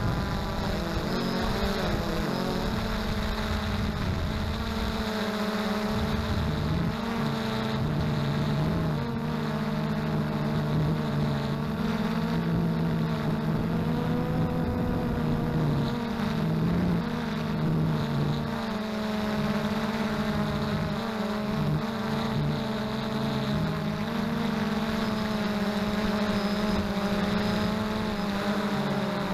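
XK Detect X380 quadcopter's motors and propellers humming steadily, the pitch shifting in small steps as the motors adjust speed, with wind buffeting the microphone.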